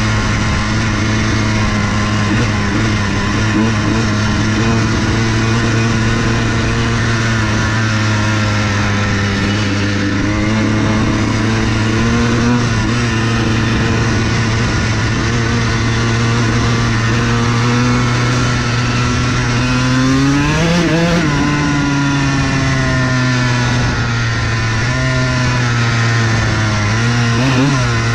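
Dirt bike engine running at a steady cruise while riding, pitch rising in a brief rev about two-thirds of the way through and again near the end.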